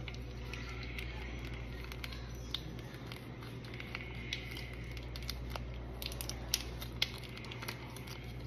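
Small plastic syrup packets being squeezed out over pancakes and torn open, with irregular crinkling and crackling, the sharpest snaps a little after halfway through. A steady low hum runs underneath.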